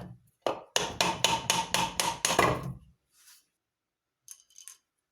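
A hammer striking in a quick run of about nine blows, roughly four a second, each with a short ringing note; a few faint clicks follow near the end.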